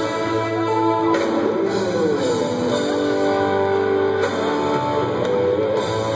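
Live rock band playing an instrumental passage, led by electric guitar holding long notes over the band. About two to three seconds in, one note slides down and back up.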